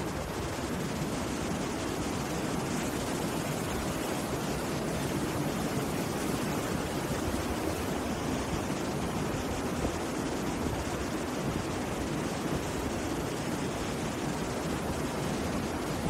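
Rough sea surf breaking and washing up a beach, a steady rush of water noise.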